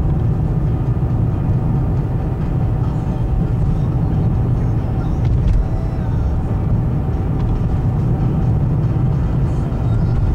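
A car heard from inside its cabin while driving: a steady low rumble of engine and tyre noise.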